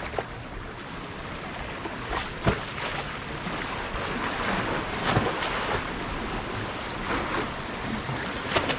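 Sea waves washing against shoreline rocks, with wind buffeting the microphone and a few short knocks scattered through.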